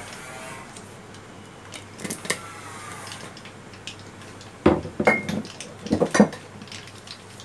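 Metal kitchenware clinking and clattering: a few light clinks about two seconds in, then two loud clatters with a short metallic ring at about five and six seconds.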